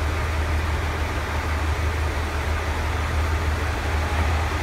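KiHa 40-series diesel railcar idling at a station platform, a steady low engine rumble.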